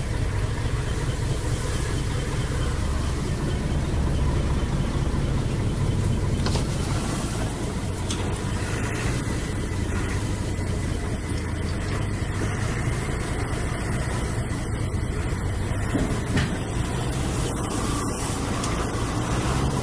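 Sugarcane haul truck's diesel engine running steadily, heard from inside the cab as a constant low drone.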